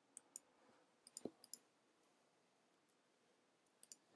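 Faint computer mouse and keyboard clicks: a handful of short, sharp clicks, several in quick pairs, with a soft thump about a second in.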